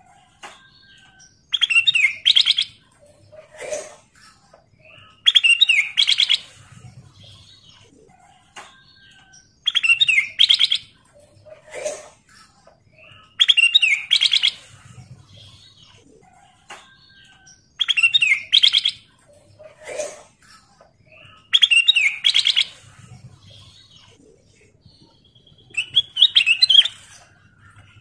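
Ruby-throated bulbul (kutilang emas) singing: a short, bright warbled phrase about every four seconds, seven in all, some followed by a single lower note.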